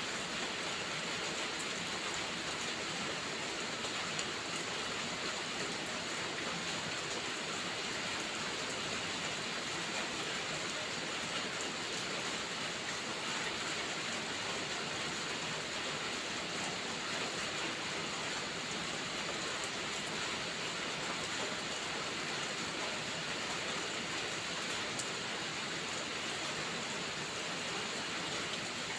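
Steady rain hiss, with faint scattered crackles of a wood fire.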